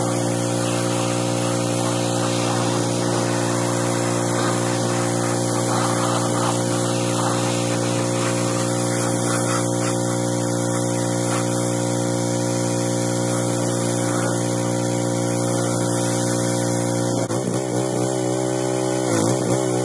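Pressure washer running steadily, its motor note under the hiss of the spray as it rinses a pickup truck. Near the end the motor's note wavers and dips.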